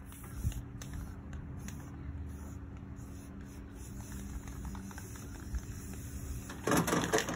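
Faint scratching of a paintbrush working paint onto the mower's body panel, over a low steady hum. A loud rustling burst near the end.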